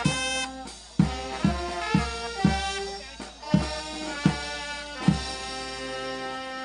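Small brass band of saxophones, a trumpet and a tuba playing a tune over bass-drum strikes, finishing on a held chord that fades out near the end.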